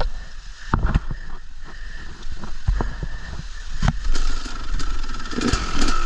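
Motorcycle engine running, with irregular knocks and clunks as the bike is worked over rocks. A steady higher tone joins about four seconds in.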